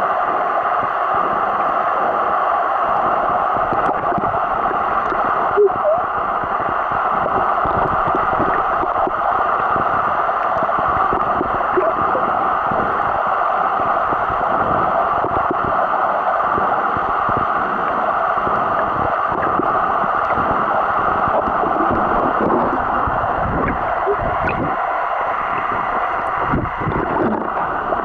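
Steady muffled rush of water heard through a camera's microphone held underwater, with a few small gurgles and pops.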